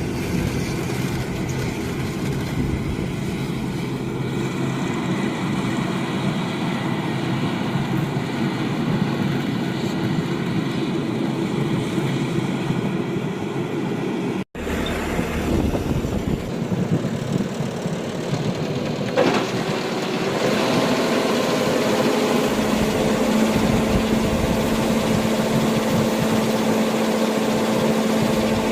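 Rice harvester's engine and machinery running steadily. The sound cuts out for an instant about halfway, and a steadier hum comes in later.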